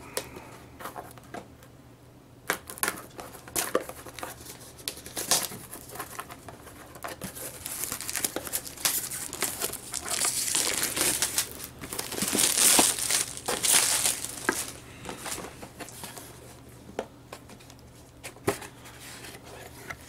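Plastic shrink-wrap crinkling and tearing as it is peeled off a cardboard power-supply box, in irregular crackles with a few sharp clicks, loudest around the middle.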